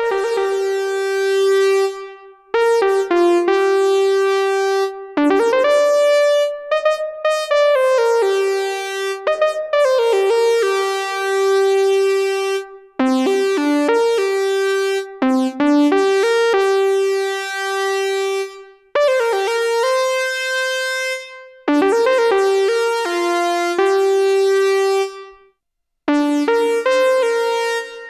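Synthesizer played through a Donner Vintaverb stereo reverb pedal on its DSverb algorithm: bright, overtone-rich held notes and chords in short phrases, with brief pauses between them and one silent break near the end.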